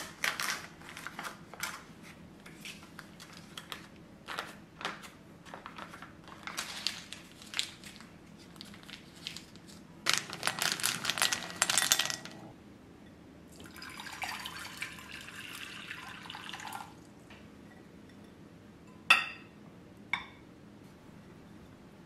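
Foil butter wrapper crinkling as it is peeled open, then a louder stretch of rustling. Next comes a few seconds of water pouring, and two sharp clinks near the end.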